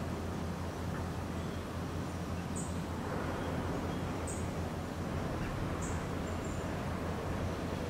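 Steady low rumble of outdoor background noise, with a short, high-pitched chirp repeating about every second and a half, three times.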